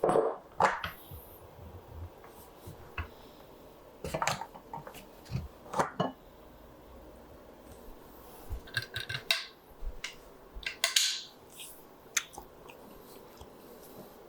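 Scattered clicks, taps and short scrapes of hand tools and parts being handled during bench work on a wooden rifle stock, busiest in the middle and later part.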